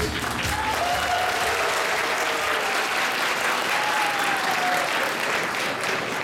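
Audience applauding steadily, with a few faint voices rising above it.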